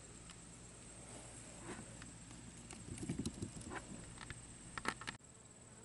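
Faint scattered knocks and scuffs of footsteps and handling, with a few small knocks near the end as cherry tomatoes are dropped into a plastic tub of cucumbers.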